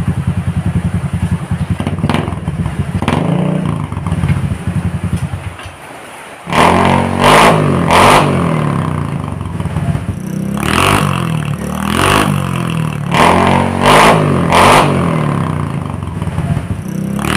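Motor-scooter engine running through an aftermarket "chicken pipe" silencer freshly repacked with fiber. It idles with a couple of light throttle rises, then after a short dip it is revved in a series of about ten sharp blips.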